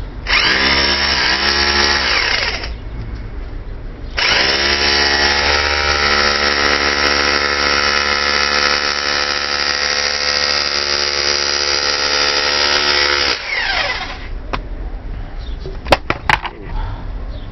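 Hammer drill driving a homemade rivet-setting bit against a steel rivet on a mild-steel helmet: a short run of about two and a half seconds, then a longer run of about nine seconds, the motor rising in pitch as it spins up each time. A few sharp clicks follow near the end, with the rivet starting to set.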